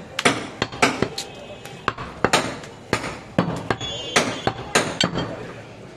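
Heavy butcher's cleaver chopping goat meat on a wooden stump chopping block, about two sharp chops a second.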